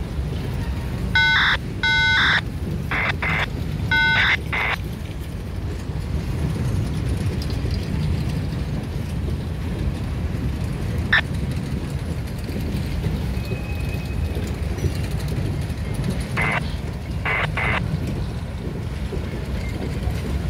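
Freight cars of a CSX mixed freight train, tank cars then boxcars, rolling past with a steady low rumble of wheels on rail. Several short high-pitched tones cut in over it during the first few seconds, a single sharp tick comes about halfway, and three more short tones come near the end.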